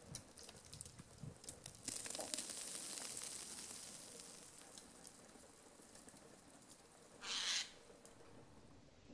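Footsteps in snow as someone walks, with soft thumps and crunches. A hiss swells about two seconds in and fades. A short, louder rushing hiss comes about seven seconds in.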